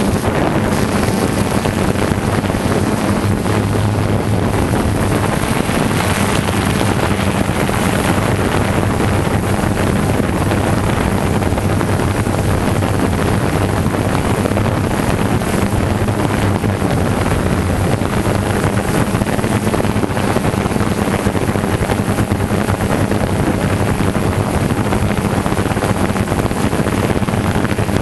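DJI Phantom 2 quadcopter's electric motors and propellers running steadily while hovering, heard from the camera on the drone: a constant hum with a steady low tone under a rushing noise.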